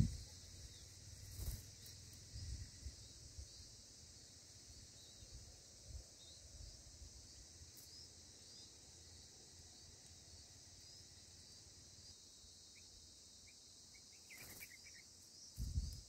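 Faint, steady high-pitched insect chorus, crickets or cicadas, with a few low thumps in the first seconds. About 14 seconds in there is a short burst of thin chirps: bulbul nestlings begging as the parent comes to the nest.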